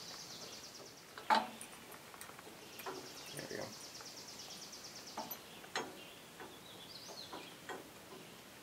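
Light metal clicks and knocks as the PTO clutch brackets are worked into place around the clutch, the sharpest about a second in. A fast, high, evenly pulsed trill sounds twice in the background.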